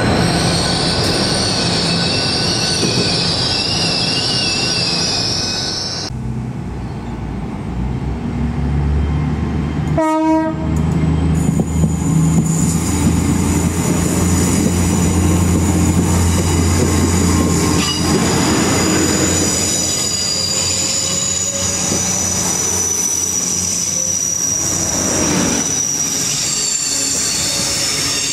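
A train at the station platform, its steel wheels squealing on the rails with high, wavering whines. There is a short horn blast about ten seconds in, and a low drone from its engines running for several seconds after it.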